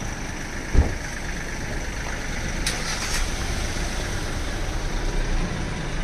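A car engine running steadily at idle, with one sharp thump about a second in.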